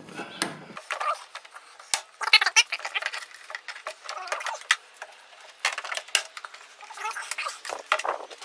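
Irregular clicks and rattles of hard plastic as the Jeep Renegade's inner door panel and its trim clips are handled.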